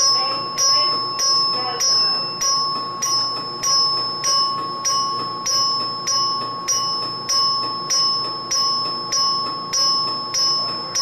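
An alarm bell rings in a steady repeating beat of about three strokes every two seconds, each stroke fading before the next, over a steady high tone.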